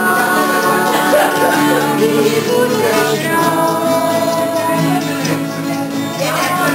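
Acoustic guitar playing with a group of people singing along, in long held notes.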